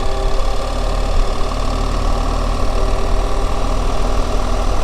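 BMW R 1300 GS boxer-twin engine running at a steady speed, an even mechanical hum with no change in pitch.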